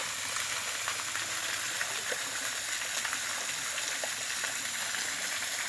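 Steady hiss of water, with scattered small ticks and drips.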